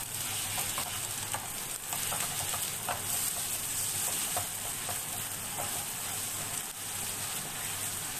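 Beaten eggs sizzling in hot oil in a pan, stirred quickly with a spatula that scrapes and taps against the pan in short irregular strokes over a steady frying hiss.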